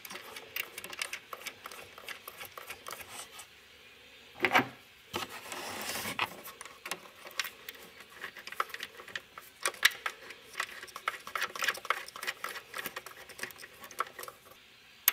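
Faint, irregular metallic clicks and scrapes as the purge valve's mounting bolts are threaded in by hand, with a louder knock about four and a half seconds in.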